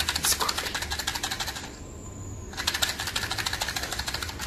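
A fast, even run of sharp mechanical clicks, more than ten a second, that stops for about a second partway through and then starts again.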